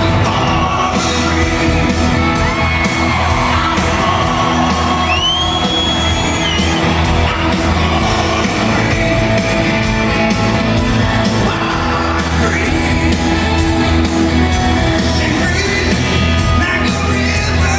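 Live rock band playing loudly with singing, and the concert crowd shouting and whooping along.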